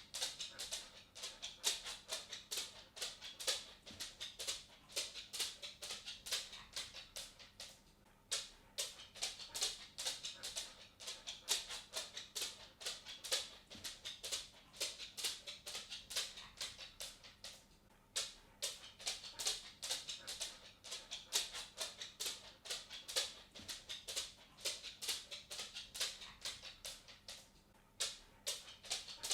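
A dog's claws clicking on a wooden floor as it walks: a quick, irregular patter of sharp ticks that pauses briefly twice.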